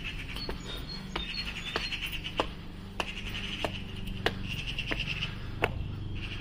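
Cicadas buzzing in repeated bouts of about a second each, with a few short bird chirps near the start. Sharp footsteps sound at a regular walking pace throughout.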